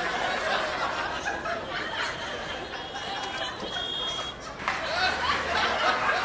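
People chuckling and chattering, with two brief high tones about three to four seconds in.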